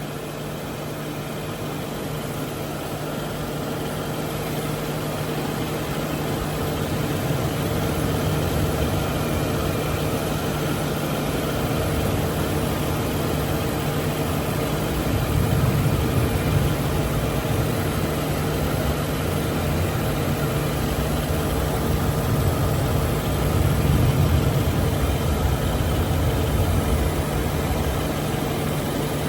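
Mercury Grand Marquis V8 idling under the open hood, the AC running on max while refrigerant is charged in. A steady hum that slowly grows louder, swelling a little about halfway through and again near the end.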